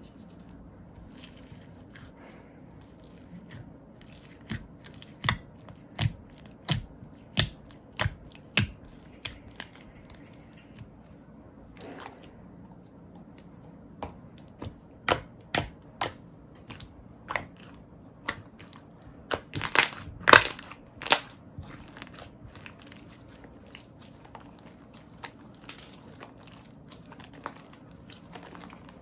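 Slime being pressed, poked and stretched by hand, giving sharp wet pops and clicks in runs. The pops come roughly every two-thirds of a second at first, with the loudest, densest burst of them about twenty seconds in.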